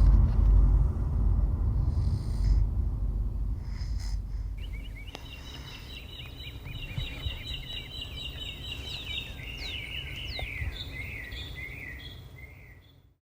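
Small birds singing outdoors: quick, repeated chirping notes over a low rumble that fades away. The sound cuts off near the end.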